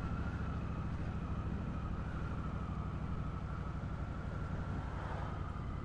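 Motorcycle engine running at a steady speed, with a faint steady high whine above it.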